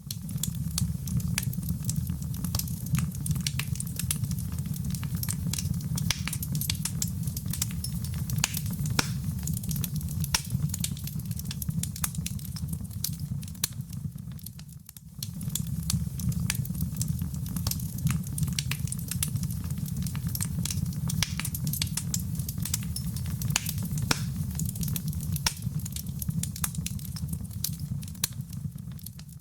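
Wood fire in a fireplace crackling, with dense small pops and snaps over a steady low rumble of the flames. It dips briefly about halfway through.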